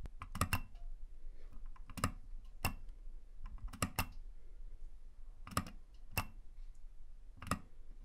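Arcade push button's microswitch clicking sharply as it is pressed and released, about seven times, some clicks in quick pairs. The button works as an MQTT switch for Sonoff-controlled lamps.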